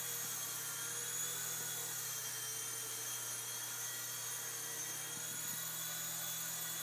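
Syma S800G toy RC helicopter in flight, its small electric motors and coaxial twin rotors giving a steady whine.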